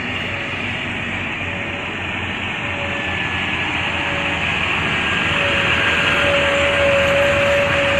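Fuel tanker truck passing slowly at close range on wet asphalt: diesel engine running and tyres on the wet road, growing gradually louder, with a steady whine that strengthens over the last few seconds.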